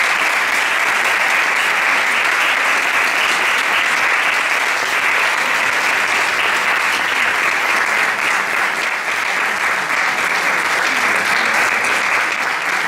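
Audience applause, long and steady, with the women standing on stage clapping along.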